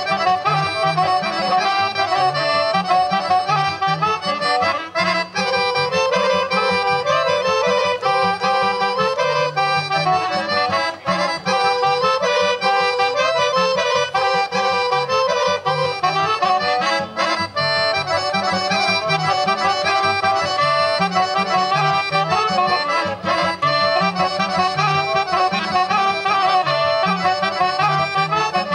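Accordion-led Serbian folk dance music with a steady, driving beat, accompanying a kolo dance.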